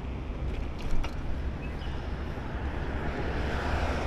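Wind rumbling steadily on the microphone of a moving bike, with a few light knocks about a second in and road noise swelling near the end.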